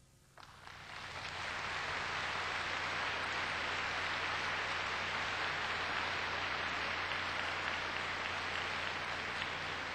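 Concert-hall audience applauding, starting suddenly about half a second in, swelling over the next second, then holding steady.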